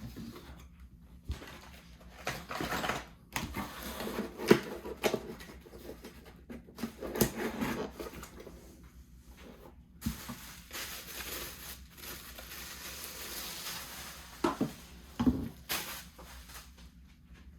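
Cardboard packaging box being handled and moved aside: irregular rustling and scraping with a few sharp knocks.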